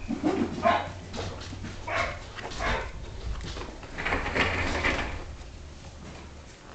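Shetland sheepdog puppies at play, giving short yips and barks every second or so, with a longer stretch of yapping about four seconds in.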